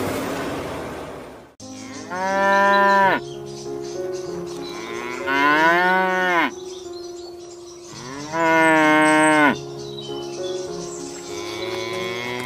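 Cow mooing: three long, drawn-out moos a few seconds apart, with a fourth beginning near the end, over steady low background tones. Before the first moo, a hiss-like noise cuts off abruptly about a second and a half in.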